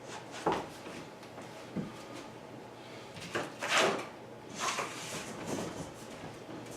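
LifeProof vinyl flooring planks being set down and slid into place on the floor, giving several short knocks and scrapes, the loudest about four seconds in.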